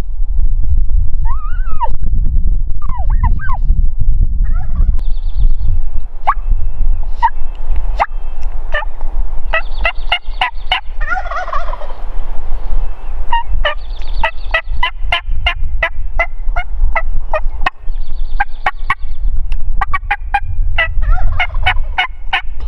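Merriam's wild turkey gobbling repeatedly from its roost, several bursts of rapid rattling notes, over a steady low rumble of wind on the microphone.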